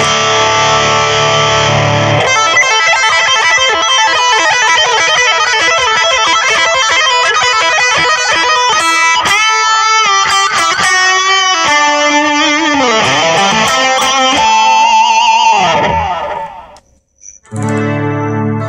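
Electric guitar played through a Mooer GE200 amp-modelling multi-effects unit on its distorted 'Hot Lead' preset. A held chord opens, then fast single-note lead runs with sliding and bent notes follow, and a held note wavers with vibrato. The sound cuts out briefly near the end before a new chord comes in.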